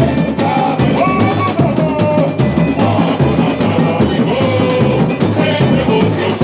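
Samba-enredo sung by several male singers into microphones, played through a carnival sound truck's loudspeakers over a steady samba drum beat.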